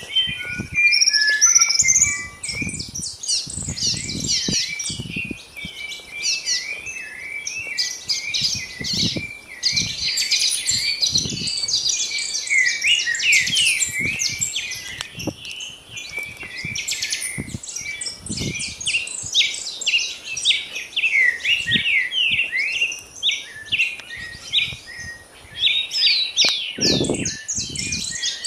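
Dawn chorus of many birds chirping and trilling at once, dense and continuous, with scattered low thuds beneath, strongest near the end.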